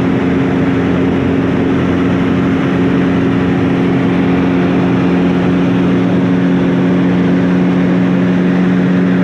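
Cabin noise of a light aircraft in cruising flight: the engine and propeller run at a steady pitch, a constant hum with several fixed low tones over a rushing noise, heard from inside the cockpit.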